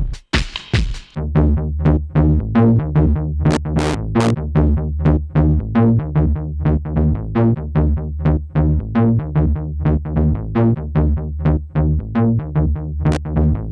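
Electronic music loop: a stepping synth bass line with regular drum-machine hits, running through an SSF Vortices modular mixer. Only a few drum hits sound at first, and the bass line comes in about a second in.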